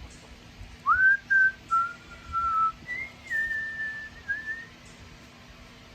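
A woman whistling a slow tune by mouth: a string of held notes with short slides between them, starting about a second in and stopping near the end.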